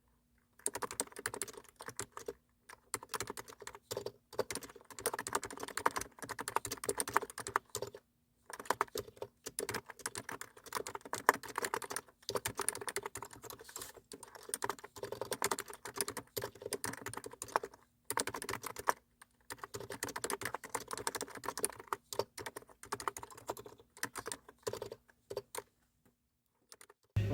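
Typing on a computer keyboard: quick runs of key clicks broken by short pauses every few seconds.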